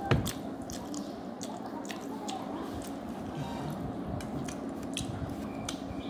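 Wet chewing and smacking of a mouthful of black bean sauce noodles: scattered squishy clicks. A single loud knock right at the start.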